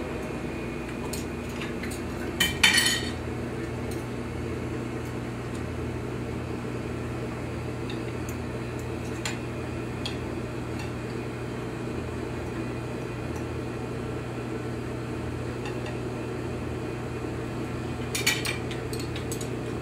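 Cutlery clinking and scraping on a plate as a steak is cut, with a short flurry of louder clinks about two and a half seconds in and another near the end, over a steady background hum.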